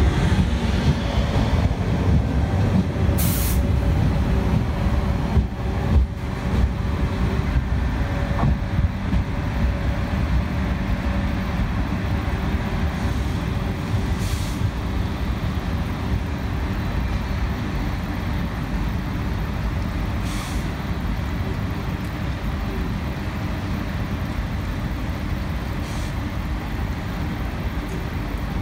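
A train at a station, its low rumble steady throughout and a little louder in the first few seconds, with four short hisses of compressed air spread through.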